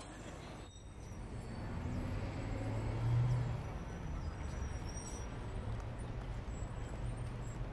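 Quiet city street ambience: a steady low rumble like distant traffic, swelling briefly about three seconds in.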